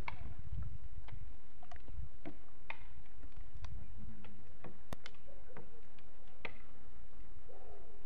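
Wind buffeting the microphone as a steady low rumble, with scattered short clicks and ticks through it.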